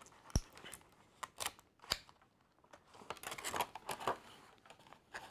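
Clear plastic blister of a carded action-figure pack being flexed and handled, giving a few sharp plastic clicks in the first two seconds and a longer stretch of crinkling about three seconds in, with a paper slip being pulled from inside.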